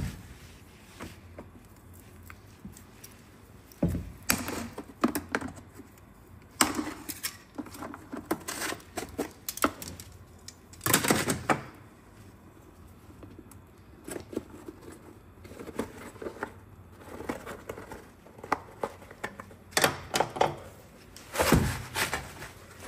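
Irregular knocks, clicks and scrapes of hands working on a Lexus RX450h front air strut: the rubber dust boot being cut and pulled away and its metal clamp bands taken off. One louder knock comes about halfway through, and a quick run of knocks near the end.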